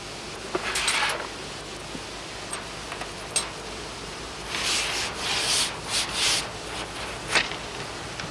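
Fishing gear being handled at a plastic seat box: the tackle drawer slides shut, then hands rub and scrape over the box and a pole section. There is a click a little after three seconds in, a run of scraping strokes in the middle, and a sharp click near the end.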